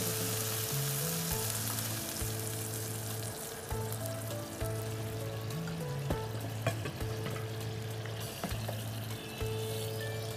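Broad beans in onion-spice masala sizzling in a hot pan just after water goes in, the hiss strongest at first and slowly easing, with a few light clinks from stirring. Soft background music with low held notes plays underneath.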